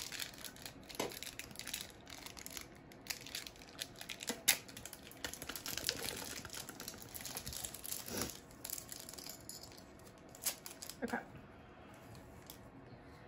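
Soft crinkling and rustling of plastic packaging with scattered small clicks and taps, as a small piece of gold-coloured jewelry is unwrapped and handled.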